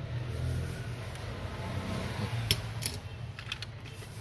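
Small clicks and taps of hand tools being put down and picked up on a cluttered electronics workbench, the sharpest about two and a half seconds in, over a steady low hum.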